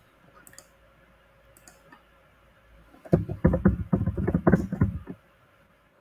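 Typing on a computer keyboard: a quick run of keystrokes starting about three seconds in and lasting about two seconds, after a few faint clicks.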